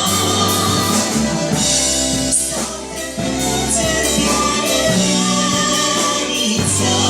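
Pop-jazz orchestra playing an instrumental passage of a slow song, dipping briefly in loudness about three seconds in.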